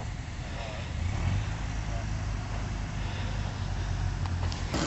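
Off-road vehicle engines running at low speed, a steady low rumble with faint voices over it; the sound changes abruptly just before the end.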